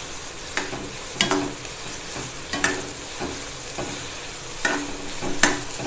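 Chopped green beans and carrots sautéing in oil in a stainless-steel kadai, with a steady sizzle, while a spatula stirs them and scrapes the pan in irregular strokes about once a second.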